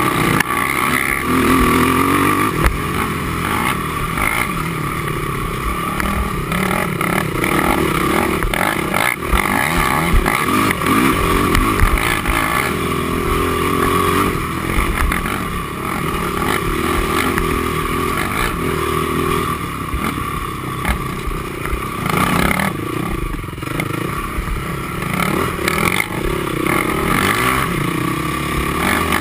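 Honda TRX450R quad's single-cylinder four-stroke engine at racing pace, its revs rising and falling over and over as the rider works the throttle and gears. Short knocks and rattles from the machine crossing rough ground come through with it.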